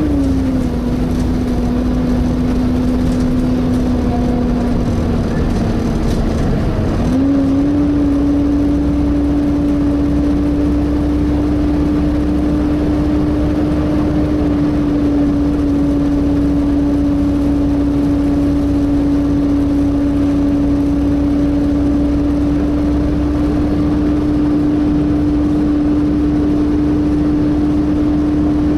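Volvo B7TL bus's engine cooling fan whining with a hoover-like drone over the low rumble of the engine. The whine sits a little lower for the first several seconds, then climbs back up about seven seconds in and holds steady.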